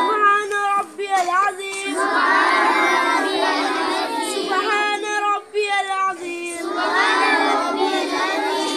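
A group of boys reciting Islamic prayer words aloud in unison, many young voices overlapping in a loud chant, with two short pauses between phrases.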